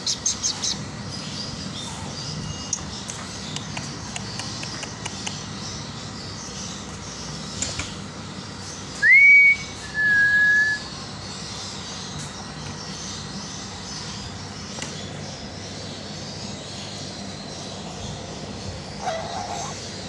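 Two clear whistled notes about nine seconds in: the first rises and holds briefly, and the second follows a moment later, steady, slightly lower and about a second long. A few light clicks come near the start over a faint steady hiss.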